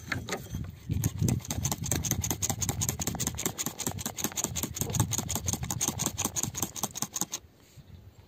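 Water poured over a crystal and wet soil, splashing in a quick, even pulsing rhythm of about seven pulses a second, stopping suddenly near the end.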